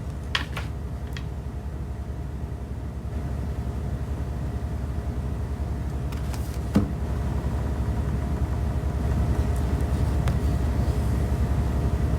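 Steady low rumble that slowly grows louder, with a couple of faint clicks.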